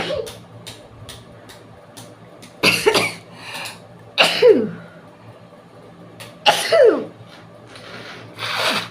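Sneezes brought on by tickling the nose with a long grass blade: three loud sneezes about a second and a half to two seconds apart, the last two ending in a falling vocal 'choo', then a softer one near the end.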